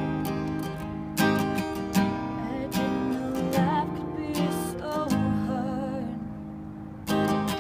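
Acoustic guitar strumming slow chords, a new chord struck about every second, with a wavering melody line carried over the chords in the middle.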